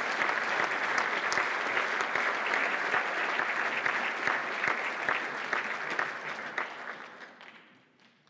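Group of people applauding, a dense patter of many hands clapping that fades out over the last couple of seconds.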